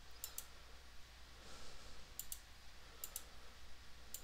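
Computer mouse clicking: four sharp double clicks spread across a few seconds, heard faintly over a low steady hum.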